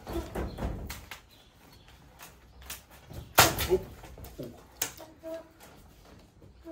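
Several sharp knocks and clatter, the loudest about three and a half seconds in and another about five seconds in.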